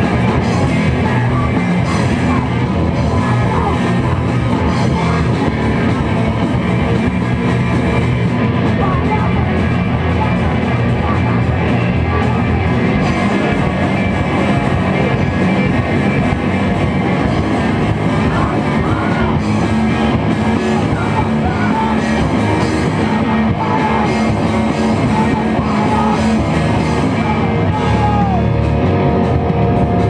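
Live rock band playing loudly: electric guitar, bass and drums, with a singer yelling into the microphone.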